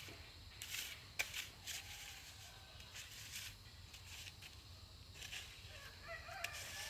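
Faint short rustling and scraping noises, with a few brief animal calls and a longer one near the end.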